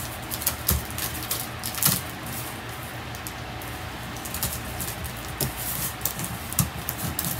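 Cardboard moving box being folded and pressed into shape by hand: scattered light taps, knocks and scrapes of the cardboard flaps.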